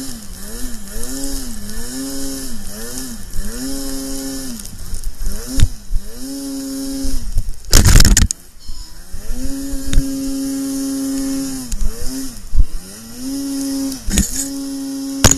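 Snowmobile engine revving up and down over and over, at times held at steady revs, under a steady rushing hiss. A loud burst of noise cuts in about eight seconds in and again at the very end.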